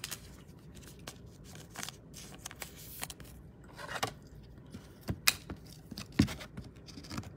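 Trading cards and clear plastic card holders being handled: soft rustling and scraping with scattered sharp clicks, the two loudest about five and six seconds in.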